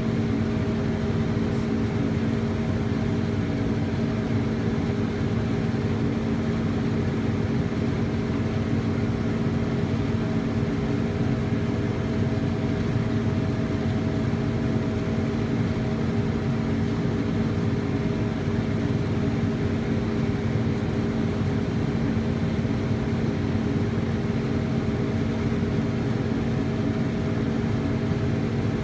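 A vehicle engine running at a steady speed, a constant hum whose pitch does not change.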